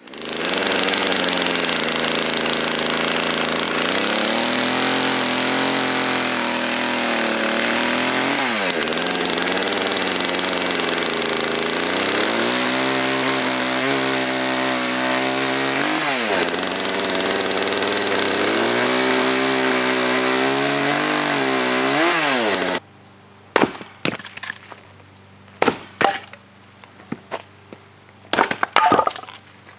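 Poulan two-stroke chainsaw bucking a poplar log into stove lengths, its engine pitch rising and falling as it cuts, with a few sharp dips. About three-quarters of the way through it stops abruptly, and a few sharp wooden knocks follow.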